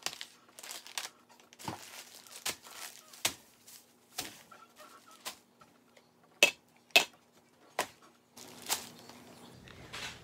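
Plastic grocery bags and snack pouches crinkling and rustling as items are set down on a countertop one after another, each landing with a soft knock. The two sharpest, loudest knocks, a little past halfway, are metal cans set down on the counter.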